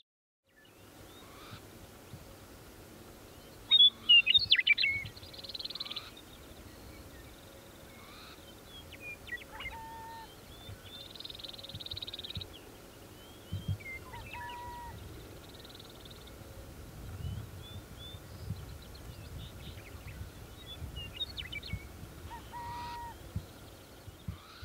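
Wild birds calling around a prairie burrow site: scattered high chirps and buzzy trills, with the loudest burst of chirps about four seconds in. One call comes back three times, a quick falling sweep that ends in a short, lower whistled note.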